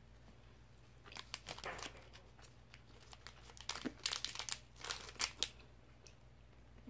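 Plastic candy packaging crinkling as it is handled and opened, in two spells of crackling, the second, about four seconds in, the louder.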